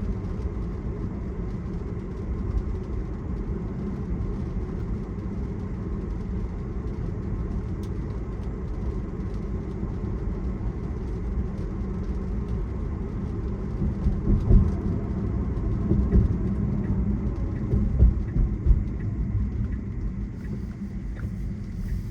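Road noise inside a Tesla's cabin on a wet road: a steady low rumble of tyres, with no engine note. A few brief, louder low thumps come in the second half.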